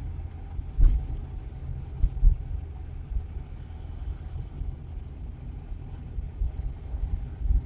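Suzuki Carry 1.0 pickup with its 1.0-litre four-cylinder engine, driving and heard from inside the cab: a steady low engine and road rumble. A few sharp knocks sound about a second in and again around two seconds.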